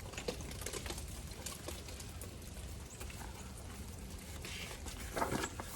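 Rain pattering steadily, with many small drop ticks scattered through it.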